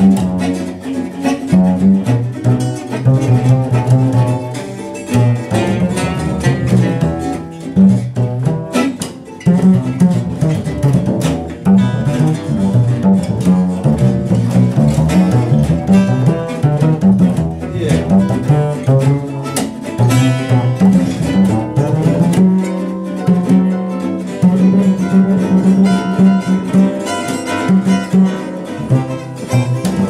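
Gypsy jazz trio playing: a double bass played with a bow carries a slow melody in long held notes over two acoustic guitars strumming and picking the accompaniment.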